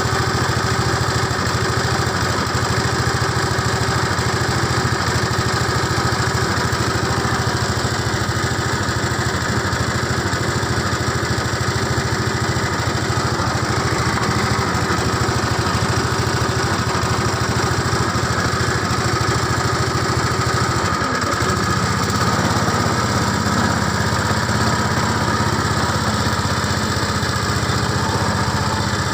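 Motorboat engine running steadily, its note shifting slightly about 21 seconds in.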